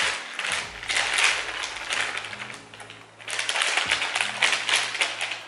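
Plastic bag of shredded hash browns crinkling as it is handled, then a dense rustle from about three seconds in as the shredded potatoes pour out of the bag into a metal baking pan.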